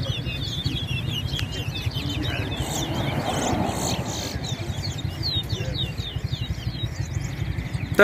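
Towa-towa finches singing: rapid, twittering song phrases repeated one after another, over a low steady rumble.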